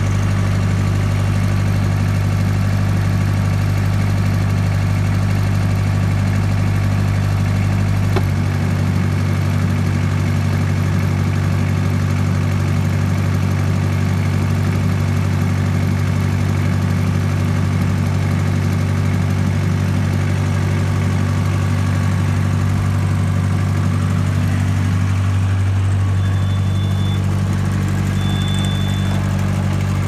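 Carrier Vector 1550 trailer refrigeration unit running with a steady low hum. About eight seconds in there is a click and the deepest part of the hum drops away. Near the end come a few short, high beeps.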